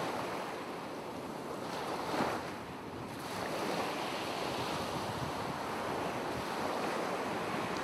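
Ocean surf: waves washing in a steady rushing hiss that swells briefly about two seconds in.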